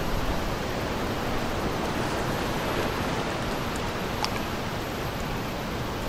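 Wind blowing across the microphone and small waves at a harbour breakwater: a steady rushing noise, with one small click about four seconds in.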